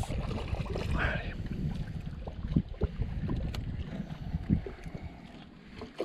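Wind buffeting the microphone, a low rumble that eases off toward the end, with a few short knocks and small splashes as a hooked carp is played in at the bank.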